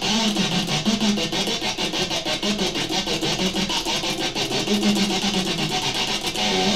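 Electric guitar with little distortion, its sound chopped on and off several times a second by flicking a switch used as a kill switch, giving a rapid, scratchy stutter over the notes.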